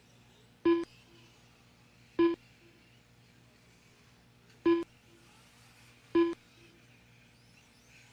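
Four short, identical electronic beeps from an RC race lap-timing system, one each time a truck's transponder crosses the timing line. They come at uneven gaps of about one and a half to two and a half seconds.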